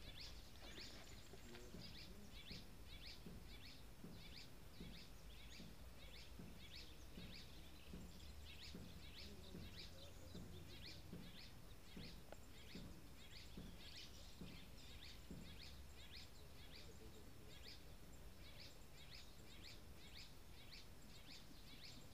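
A faint, continuous chorus of small animals calling: short high chirps repeating a few times a second, with fainter, lower short calls underneath.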